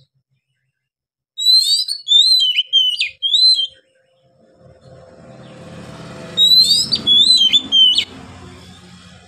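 Oriental magpie-robin singing: two loud phrases of clear, sweeping whistled notes, the second repeating the first. A low droning rumble builds in the background from about halfway and fades near the end.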